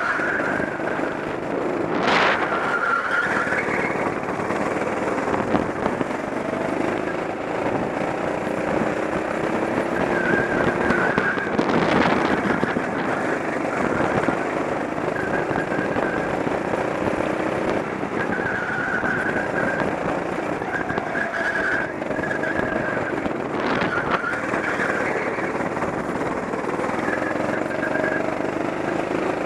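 Go-kart engine running at speed on a track, its pitch repeatedly climbing and dropping as it accelerates out of corners and slows into them. Short high squeals from the tyres come and go in the corners, and there are a few brief louder bursts.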